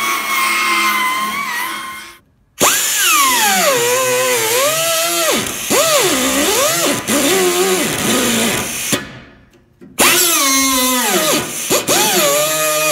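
Pneumatic quarter-inch belt sander grinding a rusty sheet-steel flange. Its whine drops and rises again and again as it bogs under pressure and speeds back up. It stops briefly twice, about two seconds in and about nine seconds in, then starts again.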